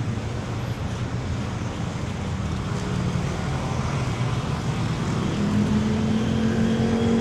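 City street traffic: vehicle engines running close by over a steady road noise, with one engine's steady drone coming in about five seconds in.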